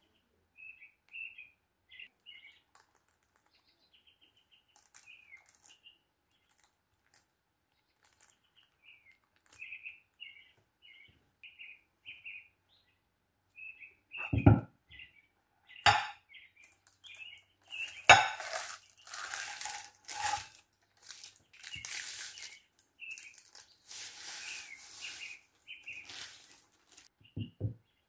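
Small birds chirp in short repeated calls throughout. About halfway in, a dull thump and then a sharp clink come as a glass pie dish is set down on a ceramic serving plate. Rustling and scraping of the dishes being handled follows, with another soft thump near the end.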